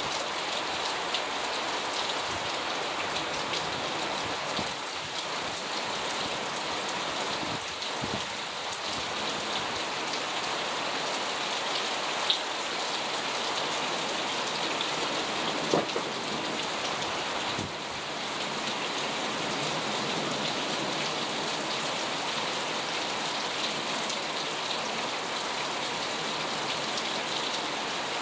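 Heavy rain falling steadily on cars and pavement, an even downpour hiss. A couple of sharper drop taps stand out near the middle.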